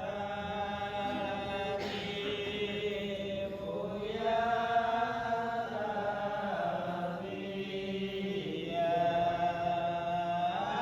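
A single voice chanting Quran recitation in long, held notes that glide slowly up and down.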